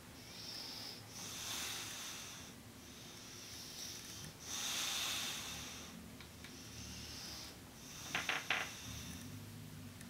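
English bulldog snoring while asleep sitting up: a run of slow, raspy breaths, each with a high whistle. About eight seconds in comes a short snort with a few sharp catches, the loudest sound.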